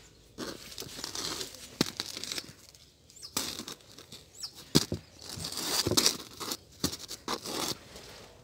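Dry rustling and scraping of round baked loaves being handled and shifted in a woven straw basket, in two stretches broken by sharp clicks.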